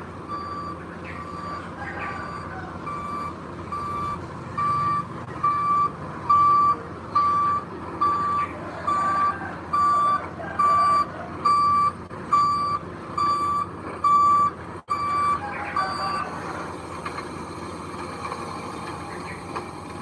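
Reversing alarm on a heavy construction vehicle beeping at about two beeps a second, growing louder, then stopping about three-quarters of the way through, over the steady rumble of its diesel engine.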